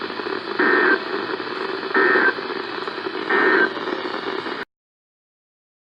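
Emergency Alert System end-of-message data bursts over hissy radio reception: three short buzzy bursts about a second apart, the signal that closes an alert. The audio cuts off suddenly about four and a half seconds in.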